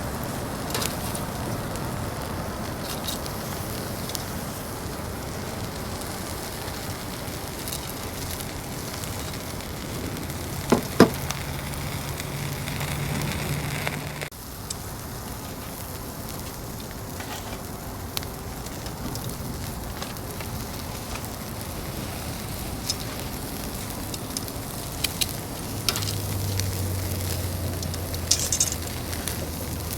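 Food sizzling on a barbecue grill grate over an open fire, a steady hiss with scattered sharp crackles and a couple of louder knocks about a third of the way in.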